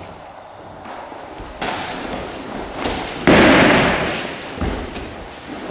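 Sudden thumps and slams, the loudest about three seconds in, with a noisy tail that fades over about a second.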